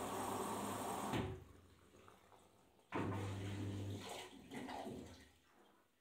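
Arçelik 5083 front-loading washing machine taking in water through its inlet valve: rushing water with a low hum that stops abruptly about a second in. About three seconds in, a second short hummed burst of inflowing water lasts about a second, then trickles and splashes away.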